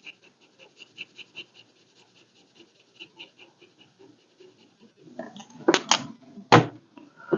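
Quick, even scribbling strokes on paper, about five a second, as a square on a savings-challenge chart is coloured in. The strokes stop about four seconds in, giving way to paper handling and a few sharp taps, the loudest a thump near the end.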